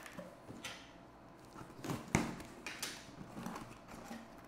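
Cardboard box being torn open by hand: a run of short ripping and crinkling sounds, the loudest a sudden snap about two seconds in.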